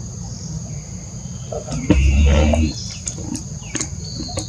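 Steady high-pitched drone of crickets or similar insects, with scattered sharp clicks and a brief muffled low rumble about two seconds in that is the loudest sound.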